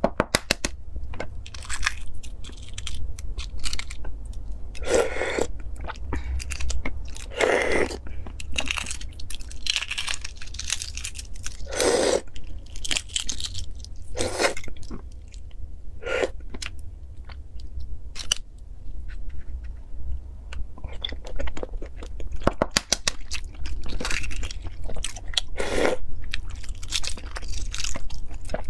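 Close-up crackling of eggshells being cracked and peeled by hand, with crunchy bites and chewing in between.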